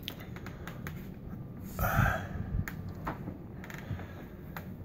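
A phone being handled close to its microphone: scattered clicks and knocks, with a brief louder rustle about two seconds in.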